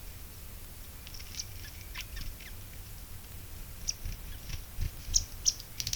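Short, high chirps from small birds, scattered at first and coming more often and louder in the second half, over a low steady rumble.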